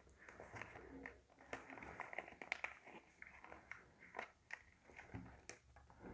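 Faint rustling and small, irregular crackles of a sheet of origami paper being folded and creased by hand.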